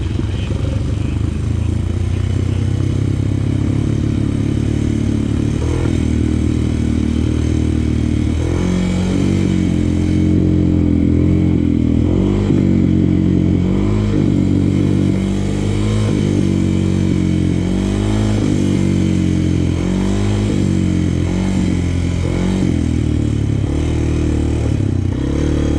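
Honda 400X sport quad's single-cylinder four-stroke engine running at a fairly steady low speed, then from about eight seconds in revving up and down again and again as the throttle is opened and closed.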